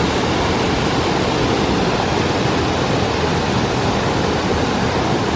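The Tusculum waterfall rushing: a steady, loud wash of falling water.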